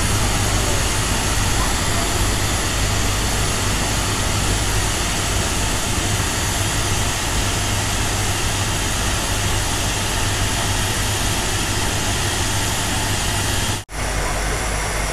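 A standing steam locomotive venting steam: a loud, steady hiss over a low rumble. The sound cuts out for a moment near the end.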